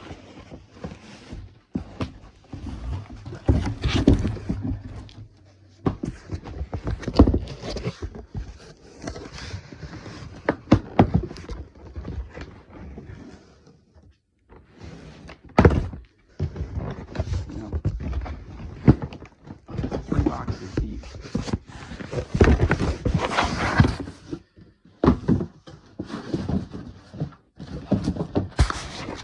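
Cardboard box and its packaging being handled as a boxed book set is unpacked: irregular thunks, knocks, scrapes and rustling, with a brief lull about fourteen seconds in.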